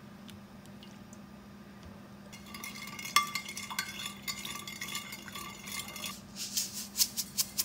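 A spoon stirring a soy sauce marinade in a glass dish, clinking against the glass. Near the end it goes into a quicker, even rhythm of about three strokes a second.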